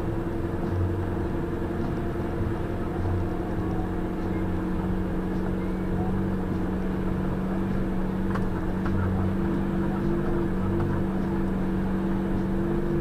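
A vehicle's engine running steadily at crawling speed, heard from inside the cab as a constant low drone.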